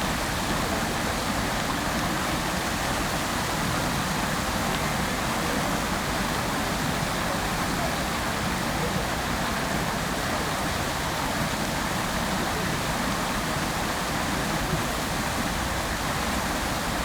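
Fountain jets of water falling into the pool, a steady even splashing rush.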